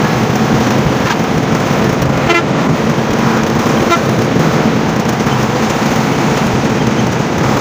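Steady road noise heard from inside a moving coach bus at highway speed, with two short horn toots, about two seconds in and again about four seconds in.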